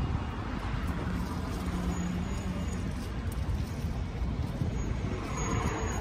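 Road traffic noise: a steady low rumble of passing vehicles.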